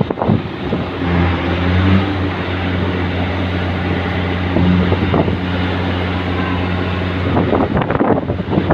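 A ship's horn gives one long, low, steady blast lasting about six seconds, starting about a second in, over wind buffeting the microphone.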